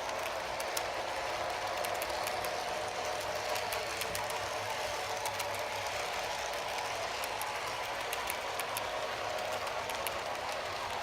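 Model train running on the layout: the locomotive's small electric motor and gearing whine steadily, with scattered light ticks of the wheels over the track.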